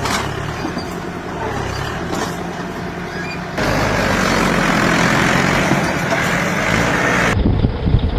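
Heavy diesel engine running under load. About three and a half seconds in, the sound turns abruptly louder and noisier.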